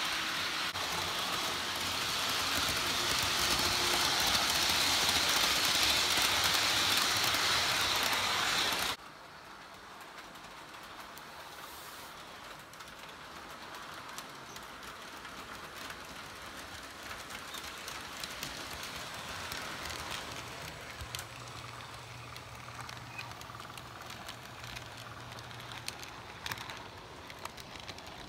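Model trains running on plastic sectional track. First comes a close, loud, even rushing hiss of wheels and motor, which cuts off abruptly about nine seconds in. Then a much quieter run follows, with light clicks and, near the end, a steady low motor hum as the passenger train approaches.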